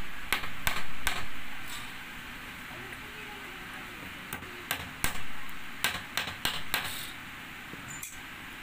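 Hammer driving a nail into a wooden board: a quick run of sharp taps in the first second, a pause, then another run of strikes from about four and a half seconds in.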